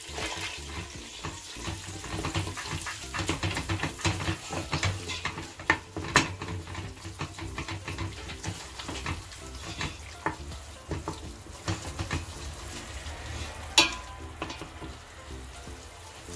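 A wooden spoon stirring and scraping tomato and pepper paste as it fries in oil in a stainless steel pot. A soft sizzle runs under frequent small clicks and scrapes of the spoon on the pot. There is a sharper knock about six seconds in and another about fourteen seconds in, over a steady low hum.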